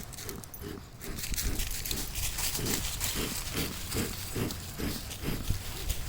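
Bee smoker bellows being pumped, a quick run of short puffs at about two to three a second to get the fuel burning, with wind rumbling on the microphone.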